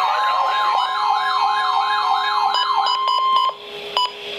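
Weather alert alarm for a tornado warning: a siren-like tone sweeping rapidly up and down, about three sweeps a second, over a steady high tone. It cuts off about three and a half seconds in and is followed by a single short beep.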